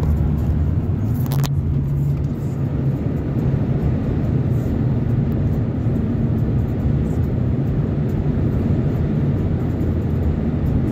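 Van driving at road speed: a steady engine hum and road noise, with one sharp click about a second and a half in.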